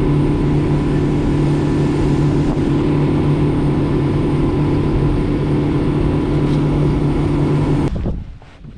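A boat's motor running steadily with a low, even hum, then cutting off suddenly near the end, leaving only faint wind and water.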